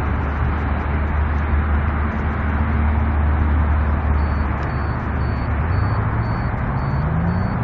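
Car running, heard from inside the cabin: a steady low drone with road and engine noise, the engine note rising in pitch near the end as the car speeds up.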